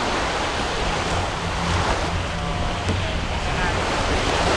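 Wind buffeting the microphone with a steady low rumble, over small waves breaking on a sandy shore.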